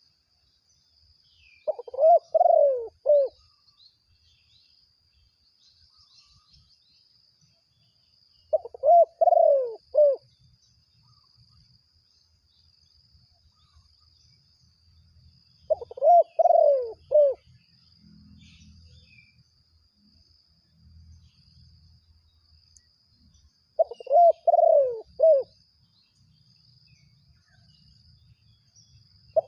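A dove cooing: a phrase of several quick falling coos, repeated four times about seven seconds apart, with the next phrase starting right at the end.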